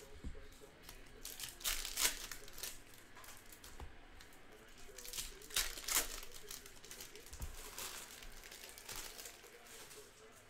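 Plastic wrappers of Panini NBA Hoops basketball card packs being torn open and crinkled by hand, in several short bursts, the loudest about 2 and 6 seconds in.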